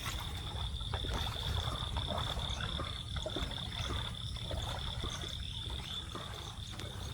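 Chorus of frogs croaking in flooded fields, over a steady high-pitched drone and a low rumble.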